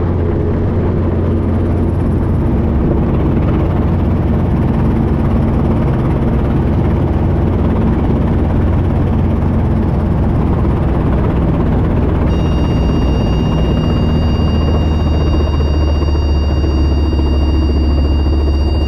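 Robinson R22 helicopter heard from inside the cabin: its two-bladed rotor and piston engine give a loud, steady low hum. About two-thirds of the way through, a steady high electronic warning tone comes on and holds, and the low hum drops slightly in pitch.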